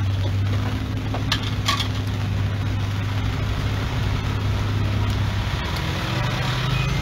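Street traffic with a steady low engine hum and a car driving past near the end, with a couple of sharp metallic clinks about a second and a half in.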